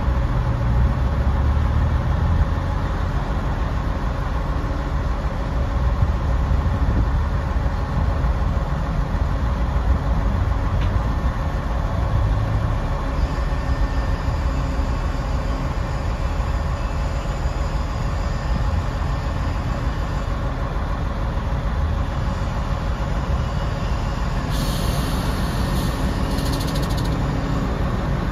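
Freightliner M2 grapple truck's Cummins ISC inline-six diesel running steadily while the hydraulic dump body is raised. Near the end a hiss lasts about three seconds.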